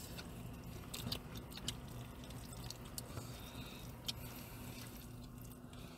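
Faint chewing and a few light clicks of a plastic spoon against a plastic takeout bowl, over a steady low hum.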